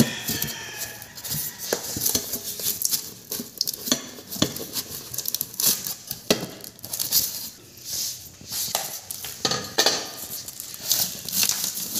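Unpacking by hand: irregular clinks and knocks of metal machine parts being lifted out of styrofoam packing, with rustling of plastic wrap.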